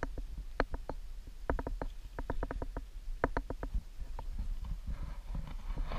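Walking with a body-mounted camera on a sandy trail: sharp, irregular clicks and ticks, some in quick runs, over a steady low rumble of wind and handling on the microphone. A hiss builds near the end.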